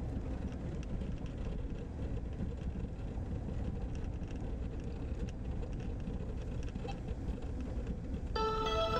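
Steady low rumble of tyres and engine heard inside a car driving on a gravel road. Music with mallet-like notes comes in near the end.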